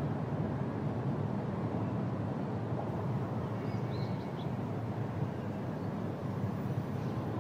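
Steady low outdoor background rumble, with a few faint bird chirps about four seconds in.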